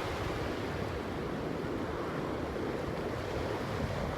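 Ocean surf washing on a beach, a steady rushing noise, with wind buffeting the microphone.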